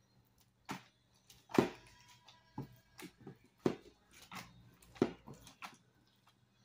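Slime filled with styrofoam beads being squeezed and kneaded by hand, giving a series of irregular sharp pops and squelches, the loudest roughly a second apart.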